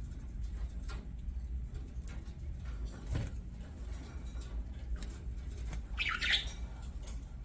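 Pet budgerigars, mostly quiet, with scattered faint clicks and a low thump about three seconds in. A short burst of chirping comes about six seconds in, over a steady low hum.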